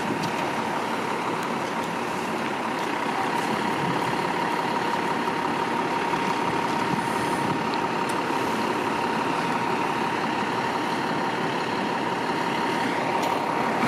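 2009 Seagrave Marauder II fire engine's diesel engine idling steadily in the firehouse bay, with a constant high-pitched tone running under it.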